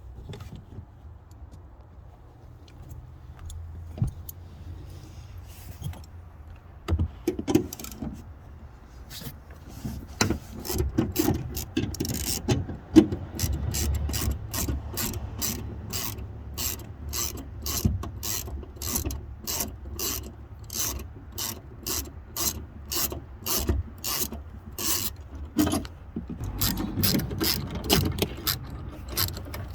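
Hand ratchet wrench clicking in a steady rhythm, about two to three clicks a second, as a bolt is backed out. The first few seconds are quieter, with only a few knocks, before the clicking starts.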